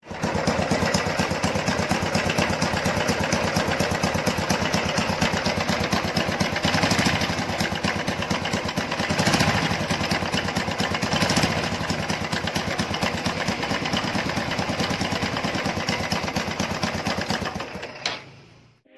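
Honda Blade motorcycle's single-cylinder four-stroke engine running with a rough, grater-like sound, swelling briefly a few times, which the mechanic puts down to a loose, worn bearing. It cuts off near the end.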